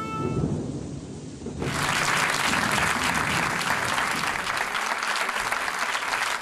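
Music fades out, then about a second and a half in an audience breaks into steady applause.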